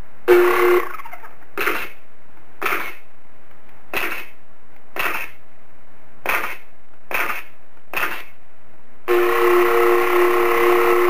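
Halo plasma pistol replica firing: eight short shots about a second apart. From about nine seconds in comes one long held shot, with a steady two-note tone, over a constant background hiss.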